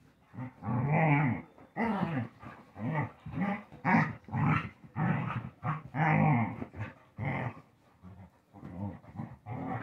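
Two dogs wrestling in a mock fight, growling in a quick string of short bursts, about two a second, with a brief lull near the end.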